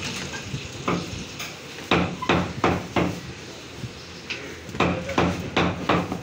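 Meat cleaver chopping goat meat for mince on a wooden chopping block: sharp chops, one about a second in, then two quick runs of four.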